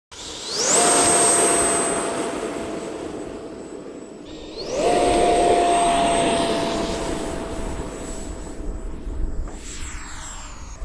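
A 64 mm electric ducted fan in a radio-controlled F-22 jet spools up to full throttle with a high whine, twice, for its take-off run on grass. The whine then slowly fades and drops in pitch near the end as the jet climbs away.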